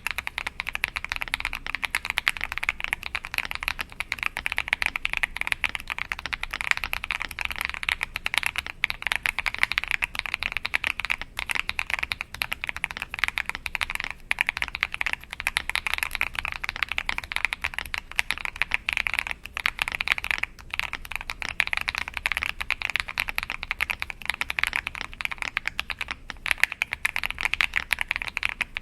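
Fast, continuous typing on an Akko 5075B Plus mechanical keyboard fitted with switches lubed with Krytox 205g0: a dense stream of key strokes with only brief pauses.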